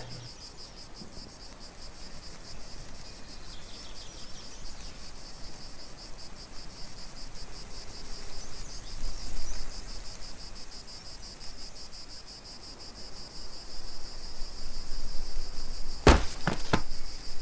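A steady, high, rapidly pulsing chorus of insects chirring. Near the end come two sharp knocks about half a second apart.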